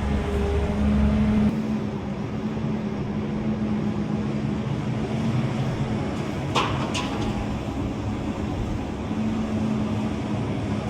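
A vehicle engine running steadily, its deep rumble easing about a second and a half in, with two short sharp high-pitched clicks or squeaks about six and a half and seven seconds in.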